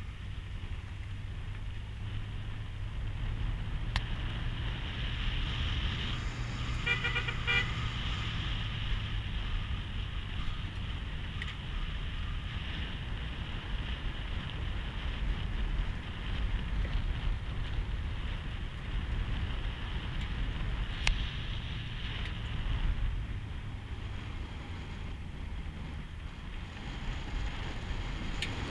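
Off-road vehicle driving along a dirt forest road: steady low engine rumble and road noise, with a couple of sharp knocks from bumps. About seven seconds in there is a short, stuttering pitched toot.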